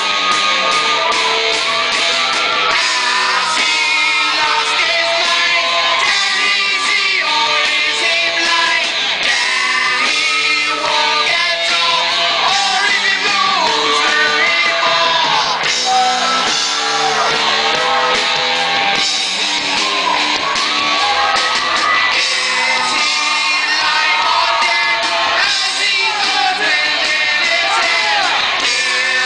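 Loud pop song with a sung vocal line over a steady beat, with occasional shouts from an audience.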